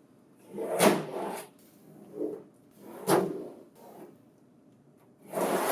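Plastic panels and parts of a printer finisher being handled: a knock with scraping, a sharp click about three seconds in, and a longer sliding scrape near the end, like a drawer or cover opening and closing.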